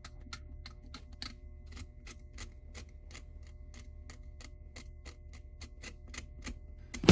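A steady series of sharp clicks, about four a second, over a faint hum; music starts loudly just before the end.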